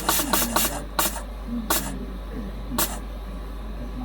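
Short puffs of hissing air from a vacuum leak tester's valves: a quick run of about five puffs in the first second, then single puffs spaced farther and farther apart.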